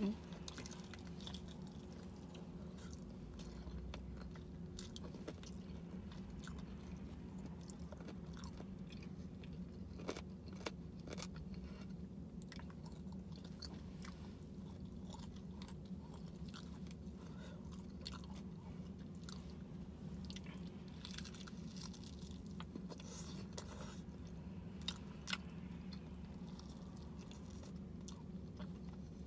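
Close-up chewing and biting of crispy fried chicken, with short crunchy crackles scattered throughout, over a steady low hum.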